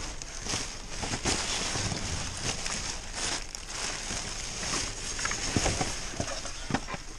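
Plastic trash bags and packaging crinkling and rustling as gloved hands rummage through them close to the microphone, with scattered knocks.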